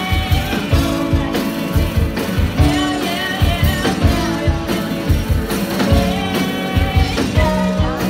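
Live rock band playing a song: a singer over electric guitars, bass and drums, with a steady drum beat.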